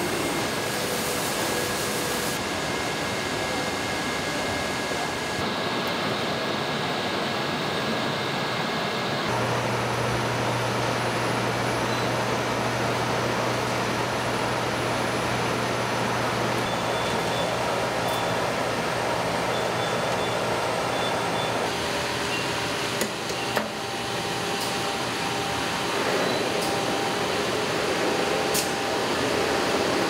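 Steady mechanical whir and hum of an industrial laundry's machinery and ventilation, changing in character several times, with a low steady hum through the middle and a few sharp clicks near the end.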